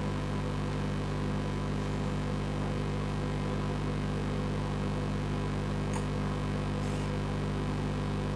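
Steady low electrical hum, even in level, with two faint light ticks about six and seven seconds in.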